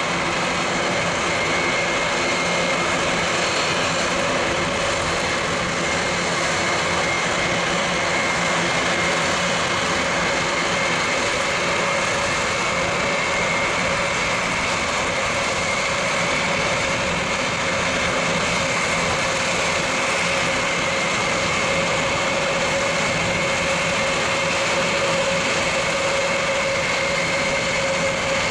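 Airbus A400M's four Europrop TP400-D6 turboprop engines running at low power while taxiing: a steady, loud propeller drone with a constant high whine on top.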